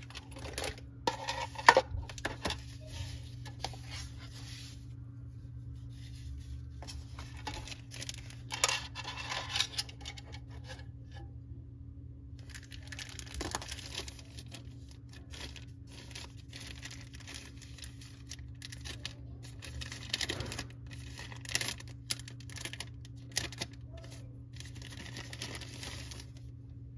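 Thin clear plastic wrapper rustling and crinkling in bouts as it is handled and pulled open, with scattered sharp clicks of hard plastic parts knocking together, the sharpest about two seconds in. A steady low hum runs underneath.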